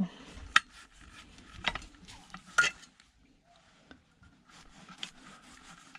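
Metal parts and hand tools clinking and scraping as an electronic unit is worked apart: three sharp clinks in the first three seconds, then quieter rustling and light ticks.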